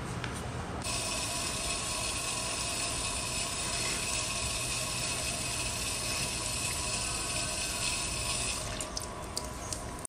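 Water running from a hose onto the gravel and soil of a potted succulent, a steady hiss that starts suddenly about a second in and stops a little before the end, followed by a few light clicks.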